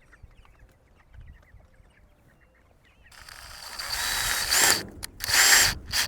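Metal hanger hardware rattling and clattering as it is handled, building up about halfway through into two loud bursts with faint metallic squeaks.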